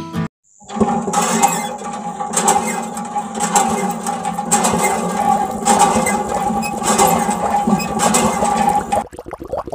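A small electric water pump motor starts just under a second in and hums steadily, with water splashing, as it pushes water out of a miniature hand-pump spout into a trough. Near the end the hum stops and only trickling water is left.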